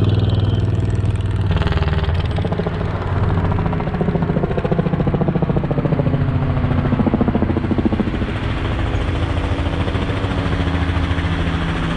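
Helicopter flying low overhead, its rotor making a fast, even beat, mixed with the engine of a motorcycle running among the cyclists.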